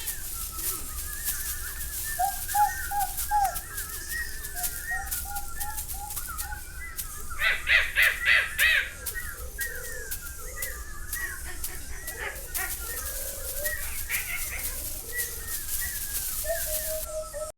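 Bird sounds performed as foley for a film: many overlapping chirps and short whistled calls, with a loud run of about five crow-like caws about eight seconds in. Light clicks run underneath.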